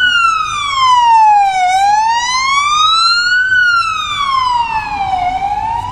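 Police car siren on a slow wail, its pitch rising and falling smoothly about every one and three-quarter seconds, growing slightly fainter near the end, with vehicle noise underneath.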